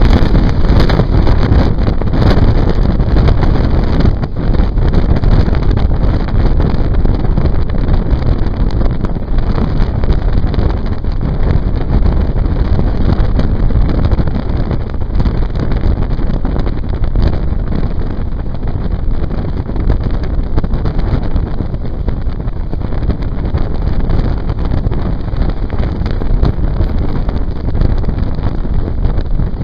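Heavy wind buffeting the microphone at the open door of a fast-moving passenger train, over the train's steady running rumble. In the first few seconds the coaches of an oncoming train rush past close alongside.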